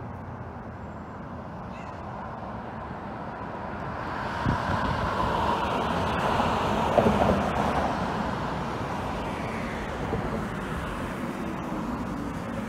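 A road vehicle passing by over steady traffic noise. Its sound builds over a few seconds, peaks near the middle, then slowly fades.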